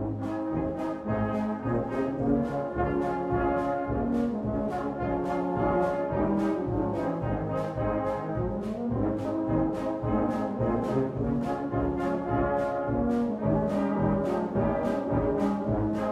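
Background music: a brass band playing, held brass chords over a steady beat of about two strokes a second.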